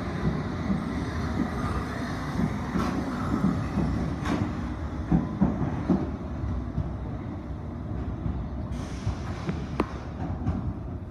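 London Underground District line train pulling out of the station and running off into the tunnel: a steady rumble of wheels on track with a few sharp clacks, easing slightly as it draws away. A brief hiss comes near the end.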